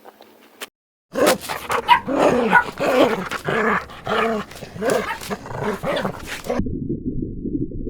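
A dog barking in a rapid series of short calls. About six and a half seconds in it is cut off by a steady low rumble.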